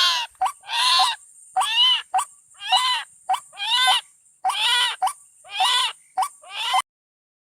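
White-breasted waterhen (ruak-ruak) calling: a loud series of arched, nasal calls about once a second, with short notes in between. The calls cut off suddenly near the end.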